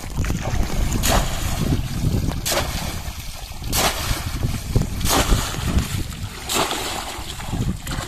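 Shallow water splashing and sloshing as a bamboo polo fish trap is pushed down into a flooded paddy field and the wader's legs and hands churn the water, with about five sharp splashes roughly a second and a half apart. A low rumble of wind on the microphone runs underneath.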